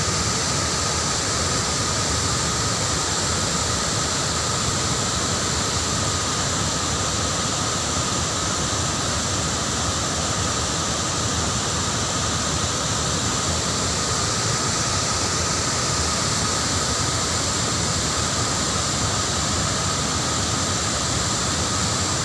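Water released over a dam's concrete spillway, rushing down the face and churning over rocks at its foot: a steady rushing noise that does not let up.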